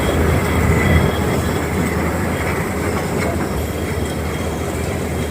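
Heavy diesel paving machinery running steadily: a continuous loud mechanical rumble with a deep low hum.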